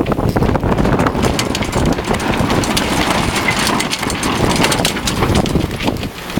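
Wind buffeting the microphone over the rush and splash of water tearing past a sailing yacht's hull at 9–11 knots, with a steady rushing noise broken by many short splashes and gusts.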